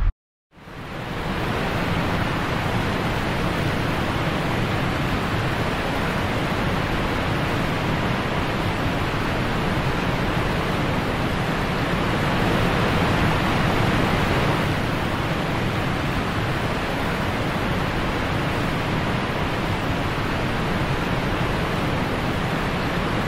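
Tap water running steadily into a ceramic washbasin, a little louder for a few seconds in the middle.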